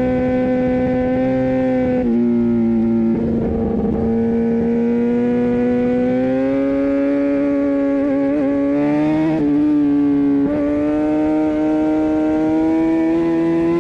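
Kawasaki ZX-10R inline-four engine running at high, near-steady revs, its pitch dipping briefly a few times and slowly climbing in between.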